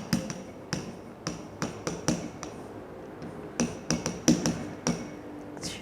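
About a dozen light, sharp clicks and taps, spaced irregularly.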